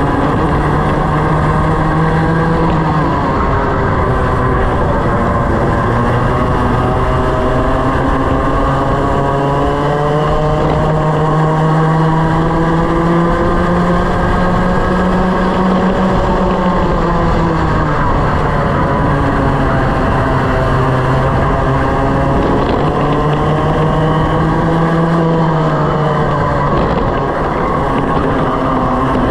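Racing kart's engine heard from onboard at race pace: its pitch climbs steadily along each straight and drops sharply as the kart slows for a corner, three times.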